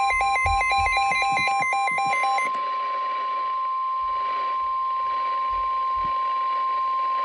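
NOAA Weather Radio warning alarm tone: one steady high tone of about 1050 Hz, heard through a weather radio's speaker and marking the start of a new warning. Until about two and a half seconds in, the receiver's own alert beeping sounds over it, a rapid beep alternating between two pitches, and then stops.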